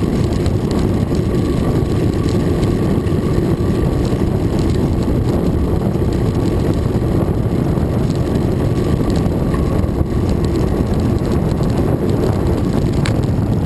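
Steady low rumble of wind buffeting the microphone of a camera mounted on a moving road bicycle.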